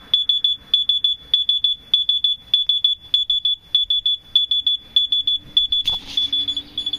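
Smoke alarm sounding: loud, rapid high-pitched beeping in quick clusters that repeat about every half second without a break. A single knock comes about six seconds in.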